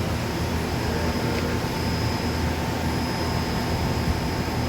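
Okuma LU-400 CNC lathe standing powered up with its spindle stopped: a steady machine hum with a thin, constant whine over it.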